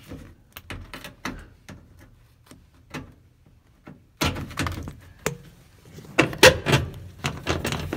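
Handling noise inside a car cabin: light clicks and knocks of hard plastic dash trim, then a brief lull, then a denser, louder clatter and rubbing from about four seconds in.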